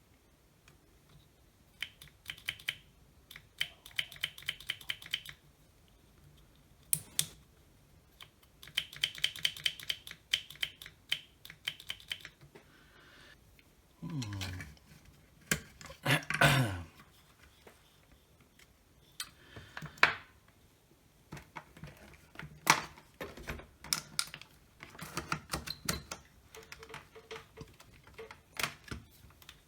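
Rapid runs of small plastic and metal clicks, with scattered knocks and a brief sweeping scrape about halfway through, from small tools and parts being handled during a cordless SDS drill repair.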